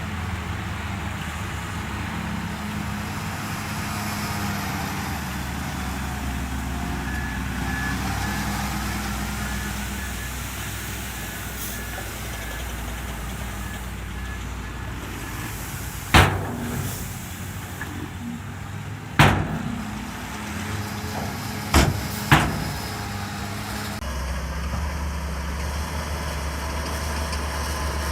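Shantui DH17C3 bulldozer's diesel engine running steadily under working load, with a reversing alarm beeping for several seconds midway. Four loud metallic clanks follow, the last two close together.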